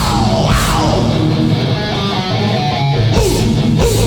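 Live hardcore punk band playing loud: distorted electric guitars, bass and drums, with cymbal crashes about half a second in and again after three seconds.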